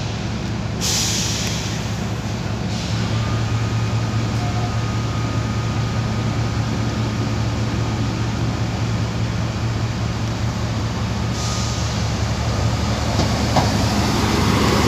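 Diesel trains running at a station platform: a steady low engine drone with a faint high whine through the middle, growing louder near the end as a diesel multiple unit passes close by.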